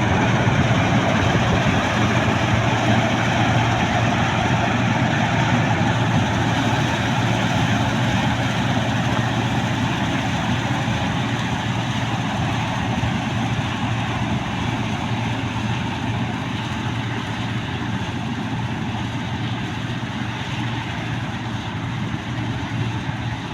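New Holland 8070 combine harvester's diesel engine running steadily, easing off slightly toward the end.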